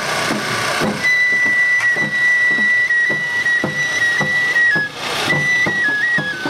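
Enshū Futamata festival bayashi: a bamboo shinobue flute plays a high, held melody stepping between a few notes over a steady taiko drum beat. The flute comes in about a second in and breaks off briefly near five seconds.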